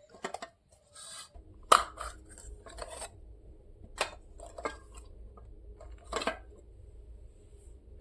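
Handling sounds of a toy and its packaging: a string of sharp clicks and taps with light scraping, the loudest just under two seconds in, over a low steady hum that starts about a second in.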